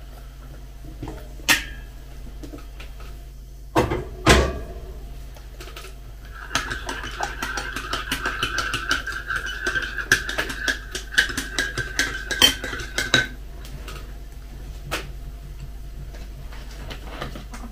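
A few sharp knocks, then a teaspoon stirring in a ceramic mug for about seven seconds: quick, rapid clinks against the side with the mug ringing on a steady tone.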